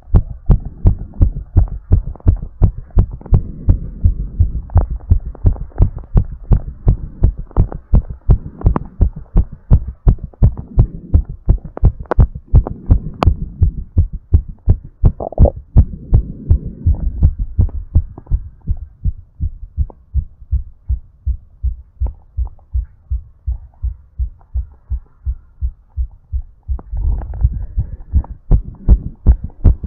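A fast, regular human heartbeat, close-miked, during recovery from exercise. A rushing breath sound swells over the beats for a few seconds at a time.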